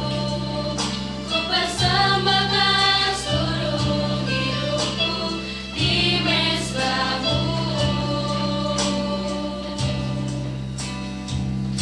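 Female vocal group singing a worship song in harmony through microphones. A keyboard accompanies them, holding sustained low notes that change every couple of seconds.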